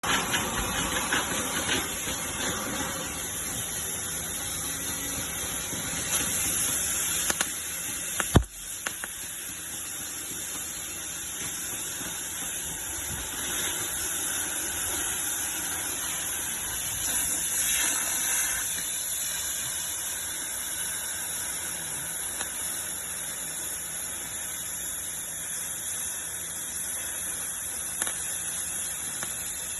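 Oxy-fuel gas cutting torch flame hissing steadily, with one sharp crack about eight seconds in.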